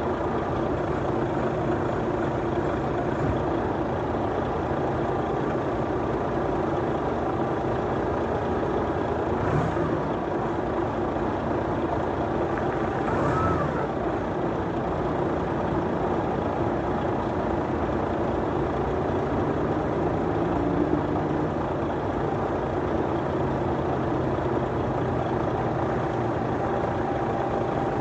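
Heavy diesel engines of a container forklift and truck running steadily, the engine note shifting a little, with two short clanks or squeaks about a third of the way in and about halfway through.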